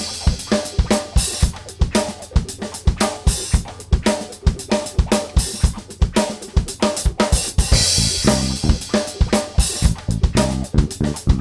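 Upbeat background music with a steady drum-kit beat of kick, snare and hi-hat over bass.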